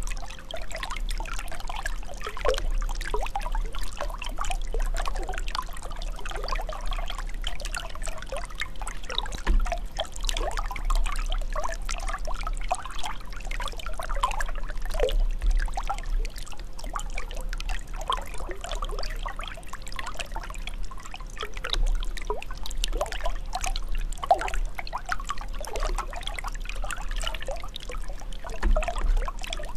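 Running water trickling and pouring steadily, full of quick gurgling bubble notes over a low rumble.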